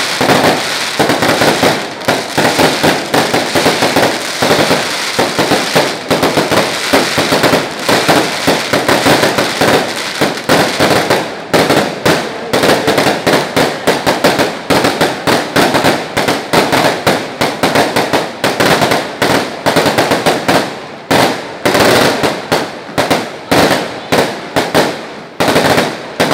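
Aerial fireworks bursting overhead in a rapid barrage: loud bangs and crackles, several a second, without a break.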